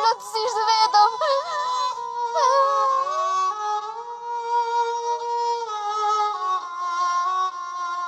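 Emotional drama score with sustained, slowly changing held notes. A wavering wordless voice rides over the music in the first two or three seconds.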